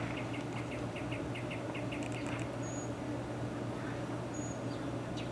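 A bird calling a quick series of short, high chirps that speed up and then stop about two and a half seconds in, with a few faint thin whistles later. A steady low hum sits underneath throughout.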